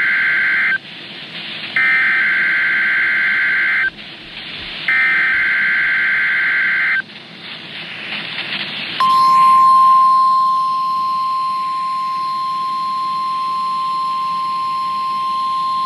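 NOAA Weather Radio emergency alert test heard over a radio receiver. Three harsh warbling bursts of SAME digital header data come first, with a short hiss between them. About nine seconds in, the steady 1050 Hz warning alarm tone begins and holds.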